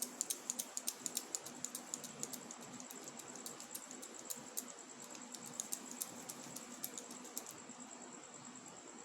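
Rapid light clicks and taps, several a second, thinning out after about seven seconds, over a faint steady high-pitched whine.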